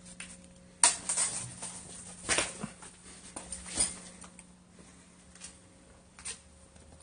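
Footsteps and scuffing on a gritty, debris-strewn concrete floor, with a sharp knock a little under a second in and a few louder scrapes after it.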